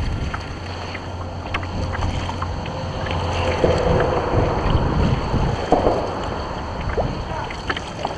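Wind buffeting the microphone and choppy water slapping against a kayak hull, with a few light clicks and knocks.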